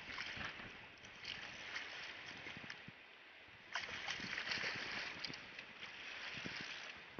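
Water splashing as a hooked fish thrashes in a landing net at the surface, in spells: briefly at the start, again from about a second in, and a longer spell from about four seconds in.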